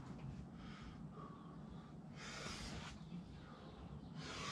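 A climber's sharp breaths: two forceful exhalations, about two seconds in and again near the end, as he sets up and pulls onto the start holds of a boulder problem.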